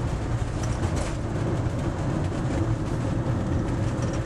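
Steady engine and tyre rumble heard from inside a moving vehicle, with faint light rattles.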